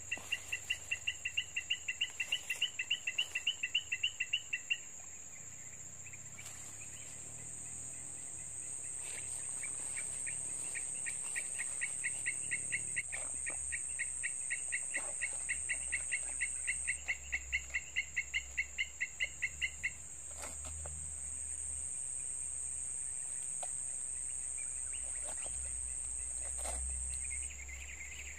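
Outdoor insect chorus: a steady, high-pitched insect drone, with two long runs of rapid, even chirps at about five a second from a calling animal, the first at the start and the second from about a third of the way in to about two-thirds.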